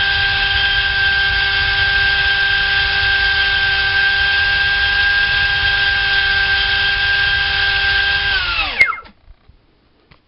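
GoolRC 2968 3800kV brushless inrunner motor driving a Changesun 70 mm four-blade electric ducted fan, running at low throttle with a steady whine as it cools down after a 5-cell full-power run. About eight and a half seconds in it is throttled off and spins down, its pitch dropping away within half a second, with a single click as it stops.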